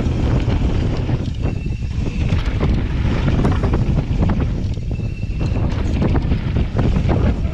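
Wind buffeting the microphone as a Santa Cruz Nomad mountain bike runs fast down a dirt trail, with tyre noise and frequent knocks and rattles from the bike over the bumps.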